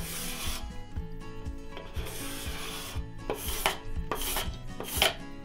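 Steel card scraper drawn along the edge of an oak leg, taking fine shavings: about five rasping strokes, two longer ones first, then three shorter, quicker ones. Soft background music with a steady beat underneath.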